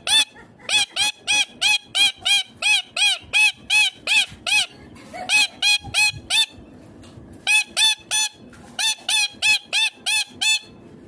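Ringneck parakeet screeching: a rapid run of loud calls, about three a second, each rising then falling in pitch. The calls come in bouts broken by short pauses.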